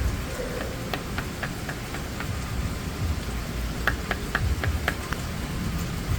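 Steady rain falling, heard as an even hiss with a low rumble underneath. There are two quick runs of light, sharp taps: one about a second in and another about four seconds in.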